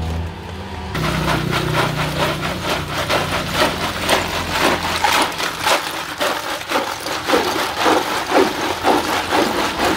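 Ice cubes clattering and scraping against the inside of a large plastic jar as they are stirred with a plastic ladle. It starts about a second in and goes as a rhythmic churn of about two or three strokes a second.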